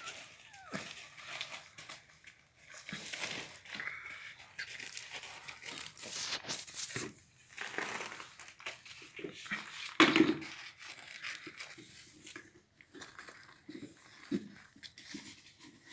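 A pitbull puppy scuffling and chewing on gravelly dirt: irregular crunching, scratching and rustling, with one sharper, louder burst about ten seconds in.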